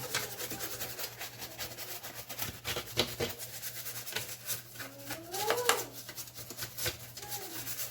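Rubbing and wiping strokes on the plastic bottom cover of an MSI GL62M laptop as it is cleaned, a run of short scratchy scrapes. About five seconds in there is a short rising squeak.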